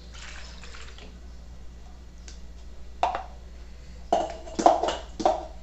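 Kitchen utensils being handled: a few light clicks, then a quick run of four or five louder knocks and clinks in the second half.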